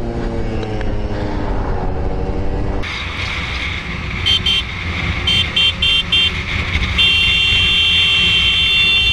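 A moped engine running, its pitch falling slightly. After an abrupt change, road and riding noise is heard, and a vehicle horn sounds in several short toots followed by a long blast of nearly three seconds.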